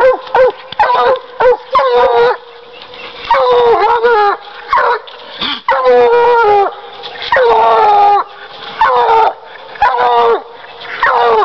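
Bluetick coonhound baying at a raccoon, the tree bark of a coon dog: about a dozen loud bawls, each falling in pitch. They come in quick succession at first, then longer calls about a second apart.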